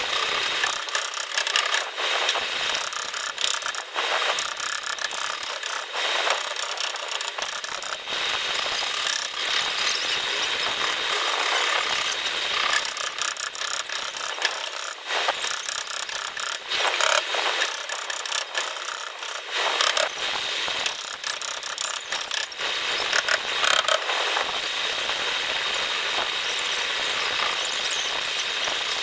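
Dense, irregular clicking and scraping from hand-tool work on a car's rear fender panel during paintless dent repair.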